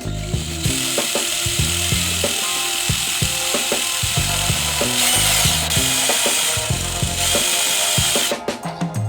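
Power drill boring mounting holes through a plastic RC car wing: a steady harsh grinding hiss that stops about a second before the end, with a brief falling whine about five seconds in. Background music with a steady drum beat plays throughout.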